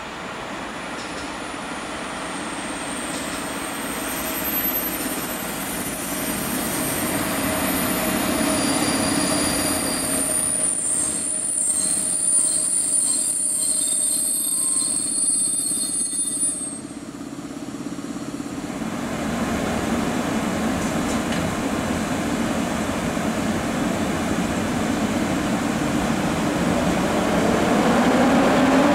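EU07 electric locomotive and its passenger coaches rolling slowly along the platform road, with a high-pitched brake squeal over the first half as the train slows. Then the rumble of the locomotive and coaches passing grows louder, and a rising whine comes in near the end.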